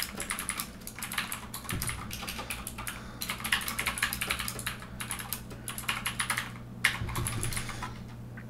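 Typing on a computer keyboard: quick runs of key clicks broken by brief pauses.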